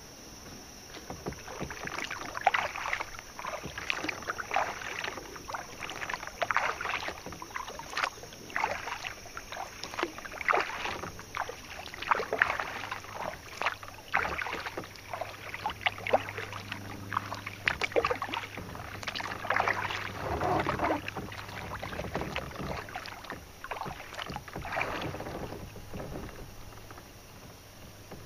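Kayak paddle strokes in river water, splashing about once a second and stopping near the end.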